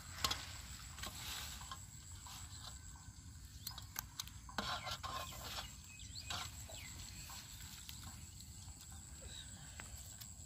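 Scattered soft knocks, squelches and rustles of hands and a plastic basket working in wet mud and dry rice straw, over a low steady rumble.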